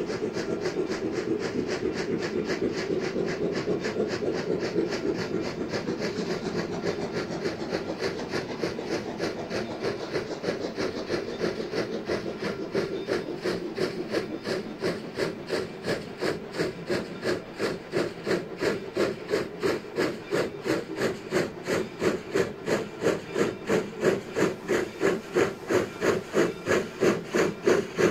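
Polson Logging Co. 70 steam locomotive working hard, its exhaust chuffing from the stack at about three beats a second. The beats grow louder and more sharply separated as it draws nearer.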